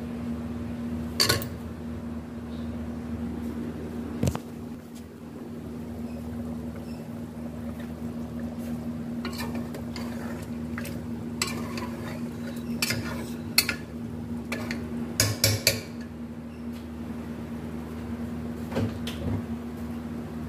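Metal spoon clinking and scraping against an aluminium pressure cooker as potato chunks are stirred into a thick curry: scattered sharp clinks, busiest in the second half, over a steady low hum.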